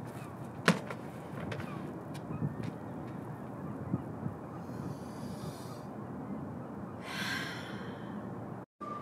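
Steady city rooftop background hum, with a sharp slap about a second in as a rolled yoga mat is thrown down and unrolled on the roof, followed by a few softer knocks. Near the end comes a breathy exhale.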